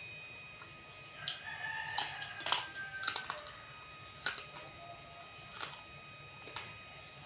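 Crisp crunches of roasted multani mitti (fuller's earth clay) being bitten and chewed close to the microphone, a sharp snap every second or so. A faint drawn-out call sounds in the background from about one to three seconds in.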